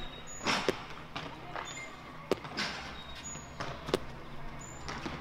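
A soft-centred Basque pelota ball, the 6 cm 'bolillo' type, bounced on a hard floor: three sharp knocks about a second and a half apart.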